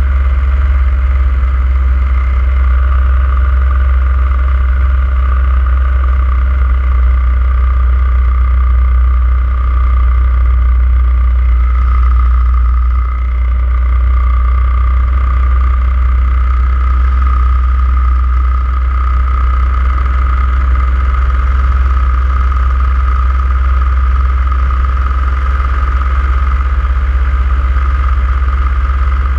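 Paramotor engine and propeller running steadily in flight: a constant drone with a steady high whine over it, dipping briefly about 13 seconds in.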